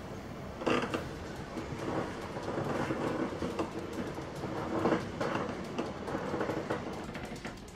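Irregular rustling and bumping of people moving about on a bed, with a few louder swells.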